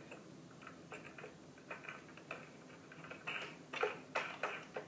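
Faint, irregular small clicks and ticks of metal hardware as washers and a wing nut are fitted by hand onto a bolt through a wooden bed-foundation frame, with a few louder clicks a little past three seconds in.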